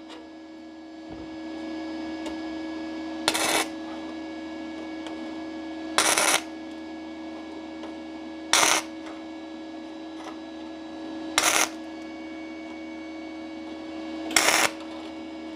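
Five short tack welds struck with a flux-cored MIG torch (Parkside PMSG 200A1 inverter welder, 0.6 mm flux-core wire at 100 A and 16.4 V) on 0.7 mm sheet metal. Each tack is a brief burst of arc noise about a third of a second long, one every two and a half to three seconds, over a steady hum.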